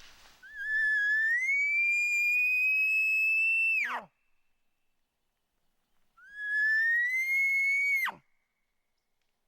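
Roosevelt bull elk bugling twice: each call is a high whistle that climbs, holds, then breaks sharply downward. The first call is long, and a shorter second follows a couple of seconds after it.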